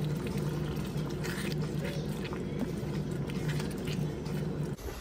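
Tomato-and-spice masala cooking in a pan, a wet bubbling sizzle with scattered crackles over a steady low hum. The sound cuts off abruptly near the end.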